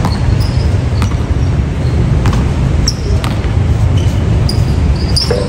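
Basketball play in a gym: a basketball bouncing on the court now and then, a few short high squeaks, over a steady low rumble of hall noise.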